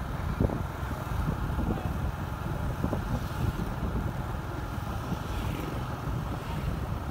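Wind buffeting the microphone over the engine and tyre noise of a vehicle travelling at speed along a highway: a steady, gusty low rumble.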